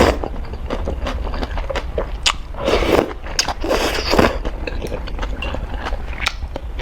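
Close-miked eating of spicy noodles: chewing and biting with many short, wet mouth clicks, and two longer noisy bursts about three and four seconds in.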